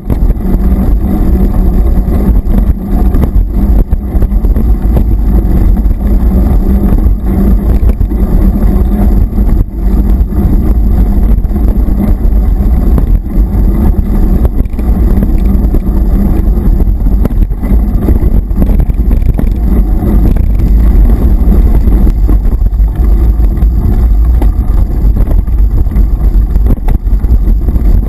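Steady, loud low rumble of wind buffeting and trail vibration on the microphone of an action camera carried on a mountain bike, which is rolling along a dirt forest trail.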